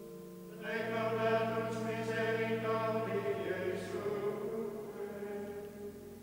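Background music of sung choral chant: sustained notes from several voices, growing fuller about a second in and fading away near the end.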